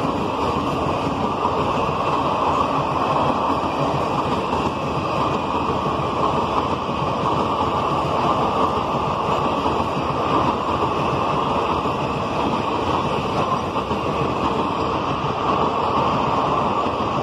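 Passenger coaches of an express train rushing past at speed: a loud, steady roar of steel wheels running on the rails.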